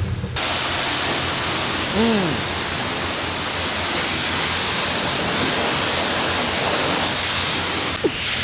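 Self-serve car wash pressure wand spraying water, a steady hiss that comes on abruptly and cuts off near the end.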